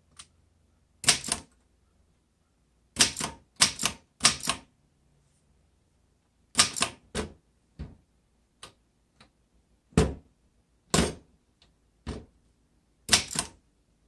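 1919 Corona Three portable typewriter being typed on slowly: about a dozen sharp clacks as single keys are struck, at uneven intervals with a few quick pairs.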